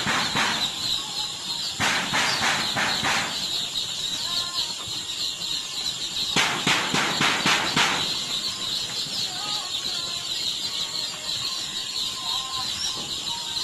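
A large flock of baby chicks peeping continuously in a dense high chorus. Three bursts of rapid clicking or rattling come in: at the start, about two seconds in, and between about six and eight seconds.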